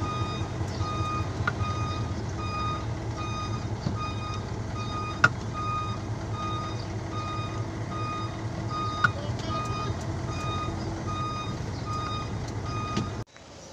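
Truck's reversing alarm beeping steadily, about two beeps a second, over the low hum of the engine running, as the truck backs up to a loading dock. Two sharp clicks stand out partway through, and the sound cuts off abruptly near the end.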